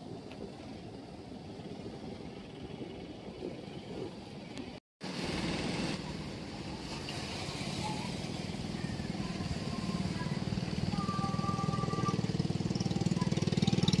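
Motor of a small outrigger fishing boat running as it passes on the water. After a brief dropout about five seconds in, another outrigger boat's motor grows steadily louder as it approaches.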